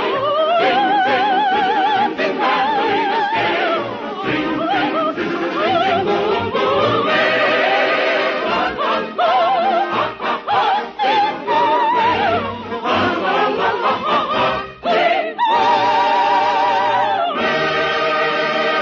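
Operatic soprano singing a lively, ornamented song with wide vibrato in a high range, over an orchestra, heard on an old band-limited radio broadcast recording. Near the end the music swells into a fuller, sustained passage.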